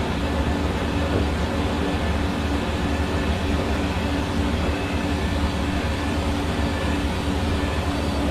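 Hair dryer running steadily: a constant rush of air over a low motor hum, with a faint steady whine, unchanging throughout.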